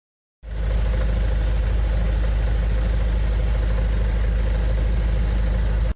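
1926 Ford Model T's four-cylinder engine running steadily at idle; it starts about half a second in and cuts off suddenly.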